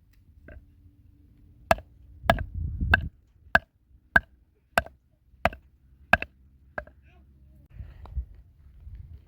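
Chopping: about nine evenly spaced sharp blows, each with a short ring, roughly one every two thirds of a second, stopping near the end.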